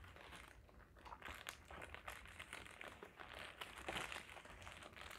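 Faint crinkling of a paper food wrapper being handled and folded around a piece of fried chicken: a run of small, irregular crackles.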